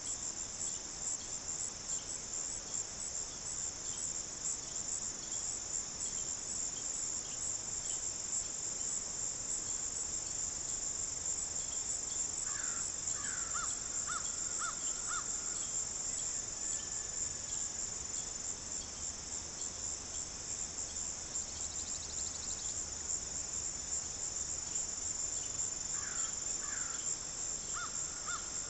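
Crickets chirring in a steady, high-pitched chorus. Twice, about halfway through and again near the end, a faint animal call of a few short notes sounds under it.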